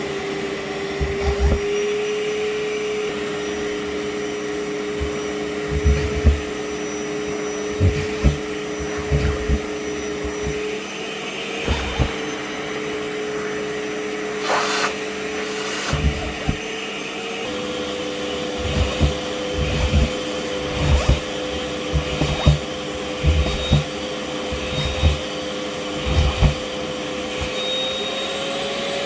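Kärcher WD 6 P wet/dry vacuum cleaner running steadily while socks are vacuumed up, with repeated short low thumps throughout. Its motor tone steps up slightly in pitch about two-thirds of the way through.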